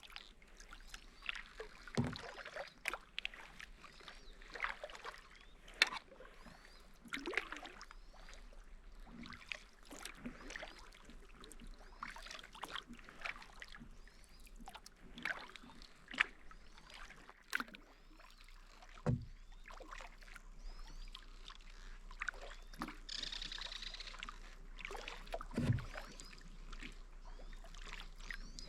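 Kayak paddle strokes: the blade dipping and splashing with water dripping off it, a stroke every second or two.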